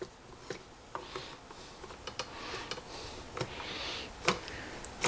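Scattered light clicks and ticks with brief scraping as the metal front cover of a Zebco 33 spincast reel is fitted and turned onto the reel body, the sharpest click about four seconds in.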